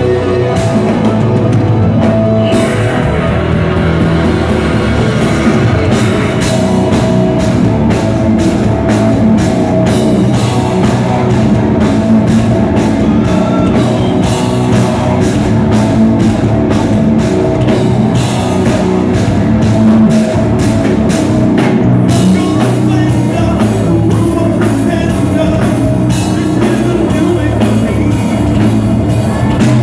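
Live heavy rock band in full play: distorted electric guitar, keyboards and a drum kit, with a male lead singer.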